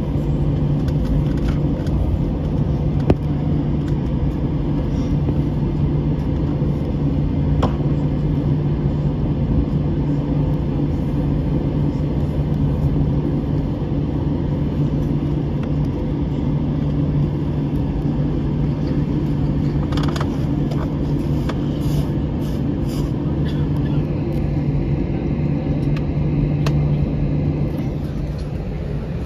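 Inside the cabin of an Airbus A321 taxiing to the gate after landing: a steady low hum from the jet engines at taxi power. A few faint clicks come about twenty seconds in, and the hum eases slightly near the end as the aircraft nears the gate.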